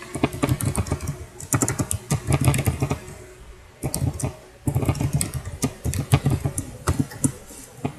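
Typing on a computer keyboard: quick runs of key clicks in bursts, with short pauses between them.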